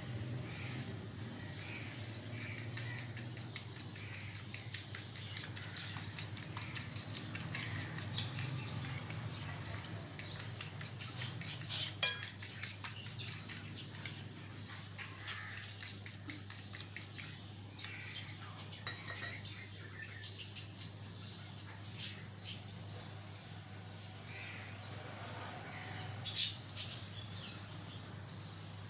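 Metal fork whisking beaten eggs and milk in a glass bowl, its tines clicking fast and evenly against the glass. The beating slows and stops after about 18 seconds, and two pairs of louder clinks follow later.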